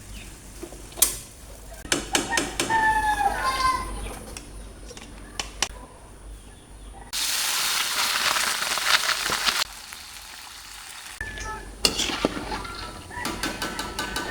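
Home cooking: scattered clicks and clatter of utensils and pans, with a loud burst of sizzling about seven seconds in that lasts a little over two seconds and then cuts off. Chickens cluck in the background.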